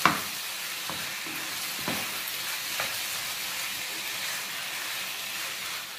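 Diced raw chicken sizzling in a hot frying pan of onion, garlic and tomato-paste base, stirred with a spatula. There is a sharp clack at the start, then lighter scrapes and taps against the pan about once a second.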